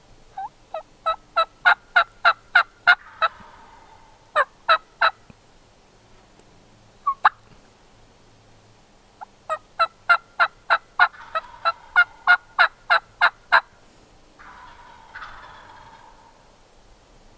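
Turkey yelping: a run of about nine evenly spaced yelps at roughly three a second, three more near 4.5 s, a single cluck about 7 s in, then a longer run of about a dozen yelps. A softer rasping sound follows near the end.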